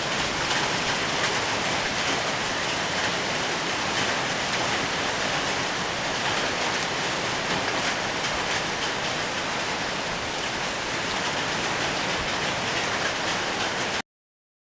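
Heavy storm downpour of rain mixed with hailstones, a steady dense hiss of drops and hail striking the ground and nearby surfaces. The sound cuts out abruptly near the end.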